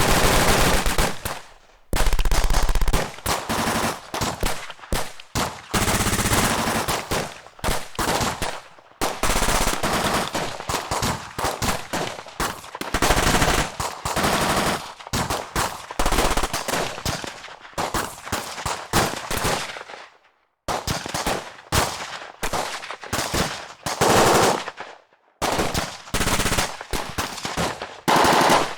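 Machine-gun and automatic-weapon fire: a long series of rapid bursts of shots, with short pauses between them, each burst dying away in a brief tail.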